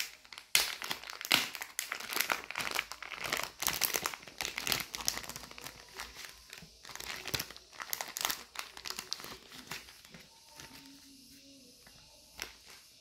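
Paper stickers and a clear plastic sleeve being handled: dense crinkling and rustling as the stickers are pulled out and flipped through. It tapers off after about ten seconds, with a single light tap near the end.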